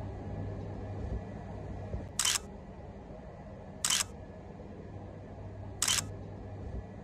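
Camera shutter clicks: three short snaps about two seconds apart, over a steady low hum.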